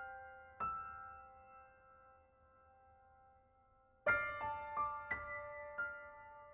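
Slow solo piano music: a chord rings out and fades away, and after a pause a louder chord about four seconds in starts a run of further notes.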